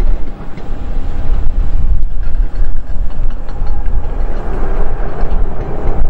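Boeing 737-300's jet engines rumbling as the airliner rolls out and slows on the runway just after touchdown, a steady loud rumble with a faint whine. The noise thickens a little about four seconds in.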